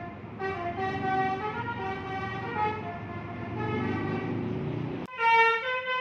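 Indonesian 'telolet' musical bus horn playing a quick melody of stepping tones over the bus's engine running. About five seconds in, the sound cuts to another bus's telolet horn, louder and without the engine rumble.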